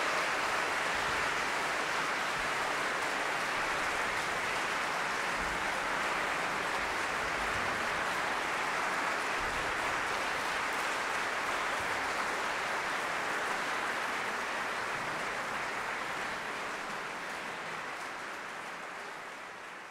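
Large audience applauding, a steady wash of many hands clapping that fades out over the last few seconds.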